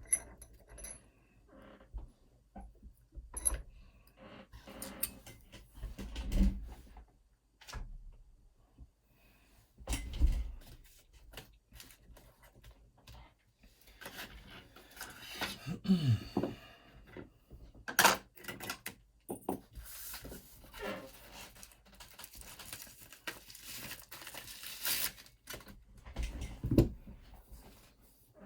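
A lock and metal tools handled on a table: scattered clicks, taps and light rattles with a few dull knocks, and one sharp click about eighteen seconds in.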